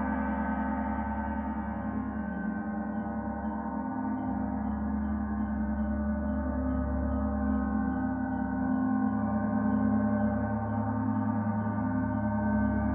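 Gong sounding in a continuous wash of many overlapping ringing tones, swelling a little past the middle. Faint cicada chirps repeat about two or three times a second behind it.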